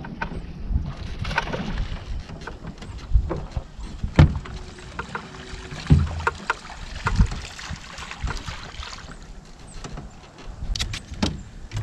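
Wind buffeting the microphone on a small fishing boat, with a string of sharp knocks and thumps on the boat. The loudest come about four and six seconds in, and a cluster comes near the end.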